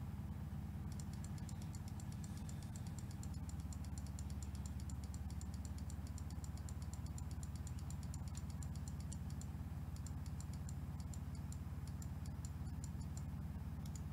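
Quick, light clicking on a computer keyboard, a fast run that thins to scattered keystrokes after about nine seconds. A steady low hum runs underneath.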